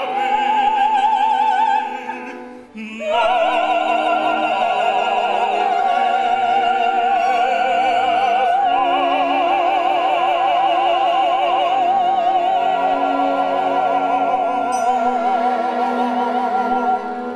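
Operatic soprano singing with wide vibrato over instrumental accompaniment. After a short break she holds one long high note for about fourteen seconds.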